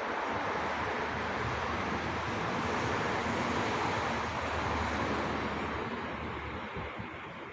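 Loud, steady mechanical rushing noise with a low rumble underneath. It swells about halfway through and fades near the end.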